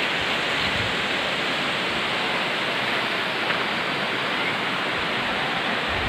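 Steady, even rush of water from a waterfall, with no change in level.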